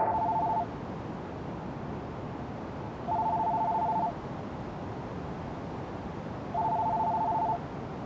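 Cordless home telephone ringing with a trilling electronic ring. Three rings about a second long each, roughly three and a half seconds apart, over a steady background hiss.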